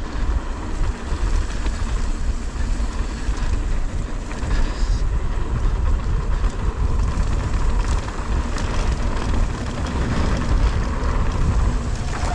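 Wind buffeting the action camera's microphone over the rumble of mountain bike tyres rolling on a dirt trail, with a few brief rattles from the bike.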